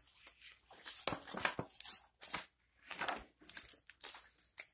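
Page of a large hardcover picture book being turned: paper rustling and sliding against the hands in several short, irregular rustles.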